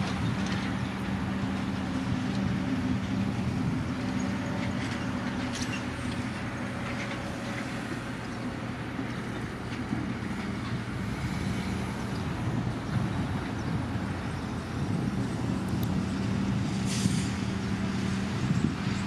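Diesel engine of a Sumitomo SH210 hydraulic excavator running steadily with a low hum as the machine digs and swings, the engine note easing in the middle and coming back up near the end. A brief scrape near the end as the bucket bites into the dirt.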